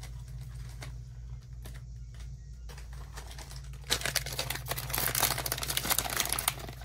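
A foil blind bag being crinkled and torn open by hand: a dense crackle that starts about four seconds in, over a steady low hum.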